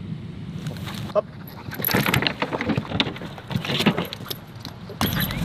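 Metal gear jingling and clinking as a handler and a working dog run together, starting about two seconds in and fading out before the end.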